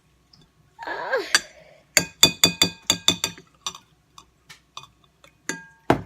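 A spoon striking and stirring against a glass bowl of slime mix: a short scrape about a second in, then quick runs of ringing clinks, about four or five a second, coming twice.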